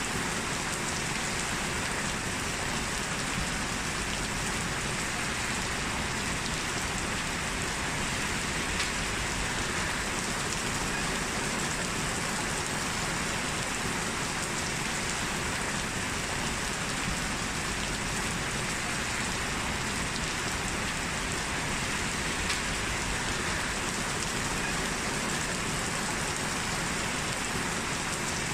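Steady rain falling: an even hiss that does not change, with a couple of brief sharper ticks.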